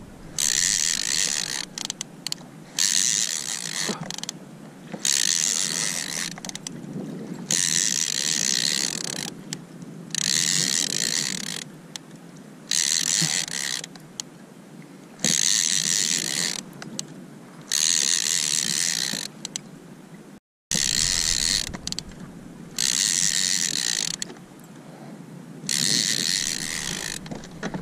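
Saltwater fishing reel being cranked in short bursts, a buzzing gear-and-ratchet whir about every two seconds with pauses between, the pump-and-reel rhythm of winding in a hooked fish on a bent rod.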